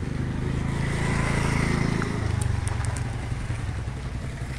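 Motor scooter engine passing close by and riding off down the lane, loudest about two seconds in, then fading as it pulls away.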